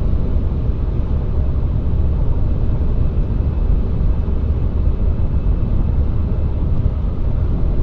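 Steady low rumble inside the cabin of a 2014 Chevrolet Cruze Diesel on the move: its 2.0-litre turbodiesel running with road noise, in the lead-up to a particulate filter regeneration that has not yet started.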